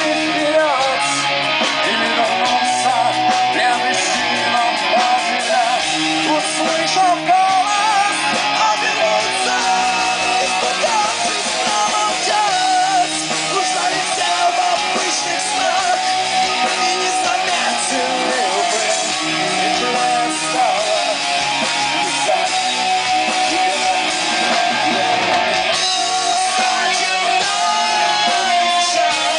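Loud rock music with guitars and singing, playing continuously.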